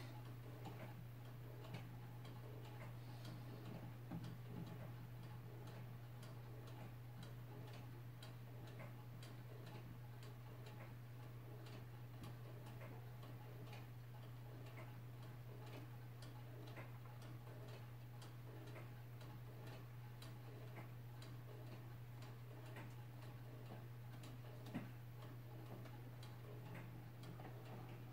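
Wooden gears and mechanism of a hand-cranked Brew Tipper beer-pouring machine, ticking in a regular rhythm as the handwheel is turned to tip the bottle. There is a sharper knock about 25 seconds in, over a steady low hum.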